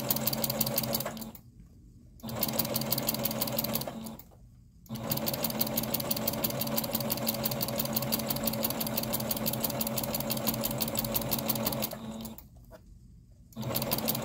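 Electric sewing machine stitching a seam through layered terry cloth with a quilting foot, running in bursts with a rapid even needle rhythm. It stops briefly three times: after about a second, around four seconds in, and at about twelve seconds.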